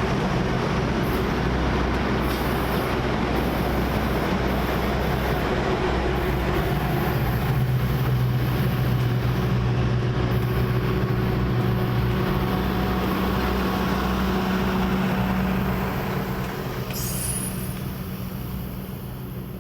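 Pan Am Railways Office Car Special train rolling past, a steady rumble of wheels on rail with a low drone, fading away near the end as the train moves off.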